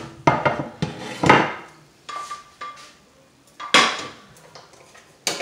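A metal frying pan and utensils clattering at the stove: a quick run of clanks and scrapes, a short metallic ring about two seconds in, then two more loud clanks, one near four seconds and one at the end.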